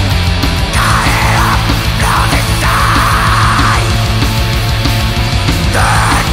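Black metal recording: a dense wall of distorted guitar over fast, even drumming. Rasping shrieked vocal phrases come in about a second in, again through the middle and near the end.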